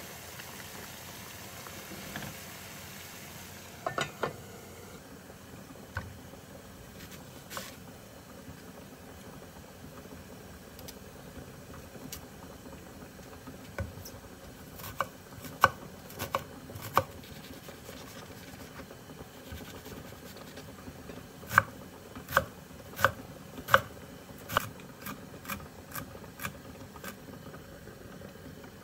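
Home kitchen food-prep sounds: scattered sharp taps and knocks of utensils, with a quick run of five knocks about two-thirds through, over a low steady hiss.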